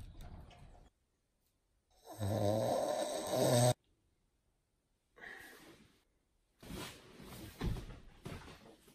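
A man snoring: one loud, drawn-out snore of nearly two seconds that cuts off suddenly, then a shorter, fainter one. Near the end, irregular shuffling and rustling of someone moving about.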